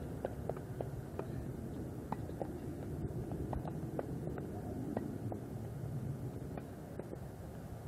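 Steady low outdoor rumble picked up by the camcorder's microphone, with faint short chirps scattered through it.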